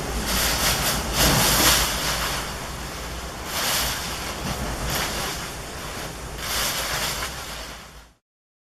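Hurricane-force wind rushing in gusts, swelling and easing every second or two over a deep rumble, then cutting off suddenly near the end.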